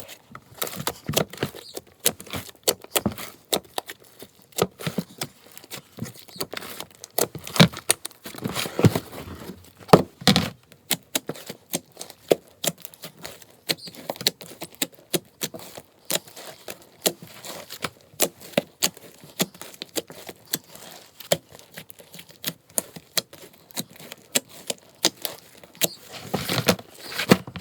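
Hands kneading and squishing a large mass of mixed slime with foam beads in it: a steady stream of irregular wet clicks and crackling pops, with a few louder pops about eight and ten seconds in.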